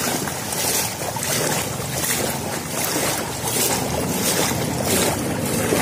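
Steady rush of floodwater flowing over the ground.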